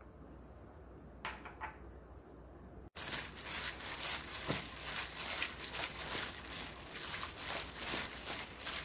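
A few light clicks, then from about three seconds in a continuous crinkling, squishing rustle: hands in thin disposable plastic gloves kneading raw pork pieces in a stainless steel pot, working in cooking wine and minced garlic to pre-season the meat.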